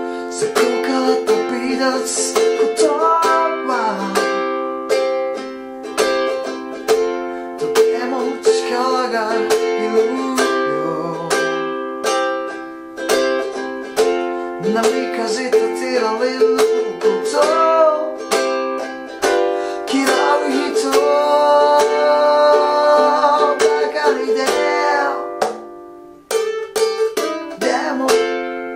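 Ukulele strummed in a bouncy, funky 16-beat shuffle through F, C and G7 chords, with a man singing the melody over it. The playing drops away briefly near the end, then picks up again.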